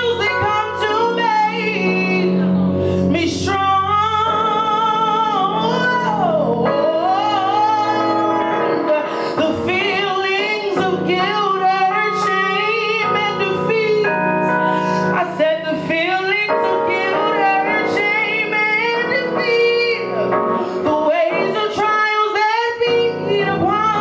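A woman singing live over instrumental accompaniment, holding and bending long notes with no clear words.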